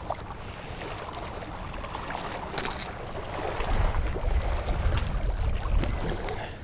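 Wind buffeting the microphone in a low rumble that grows stronger about halfway through, with a few brief scuffing or splashing noises.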